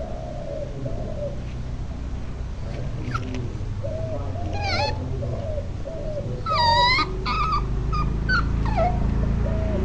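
A puppy whimpering: a run of short, soft whines, with a few higher, louder whines about halfway through, over a steady low hum.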